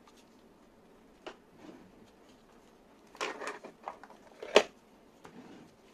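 Handling noise from a plastic-bodied handheld vibration tester and its hard plastic case: scattered clicks and knocks. There is a short clatter about three seconds in, and a sharp click about a second later that is the loudest.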